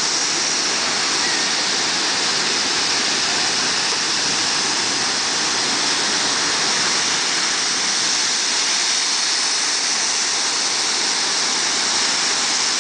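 Ocean surf breaking and washing up the beach: a steady, unbroken rush of water.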